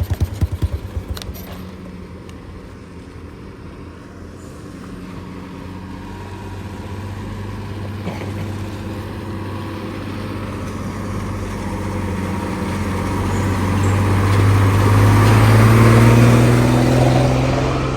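A road vehicle's engine approaching and passing close by on the highway, growing steadily louder to a peak about sixteen seconds in, its note rising near the end. In the first second or so a close engine idles with a fast, even pulsing.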